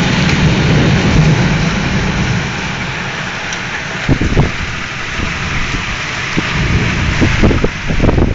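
Torrential cloudburst rain pouring down, a dense steady hiss. A deep rumble sits under it for the first couple of seconds, and short low buffeting thumps come through about four seconds in and again near the end.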